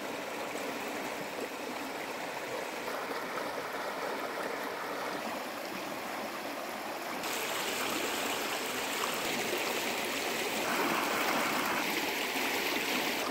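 Fast-flowing floodwater rushing and churning, a steady noisy rush that gets louder about seven seconds in.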